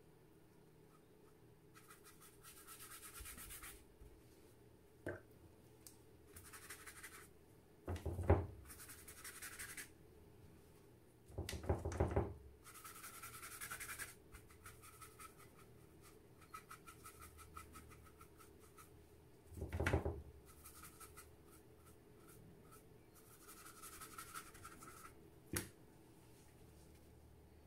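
A paintbrush stroking and scrubbing across watercolour paper in a series of short, faint scratchy passes. A few louder knocks and bumps fall in between, about 8, 12 and 20 seconds in, with a sharp click near the end.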